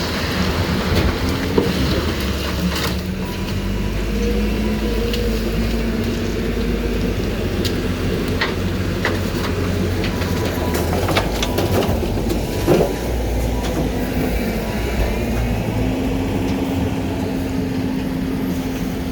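Heil garbage truck's diesel engine running, its hum stepping up in pitch twice as it revs, with a few sharp metal clanks.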